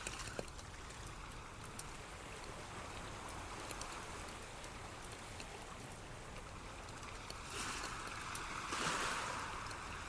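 Steady rushing of running water, with two louder swells near the end.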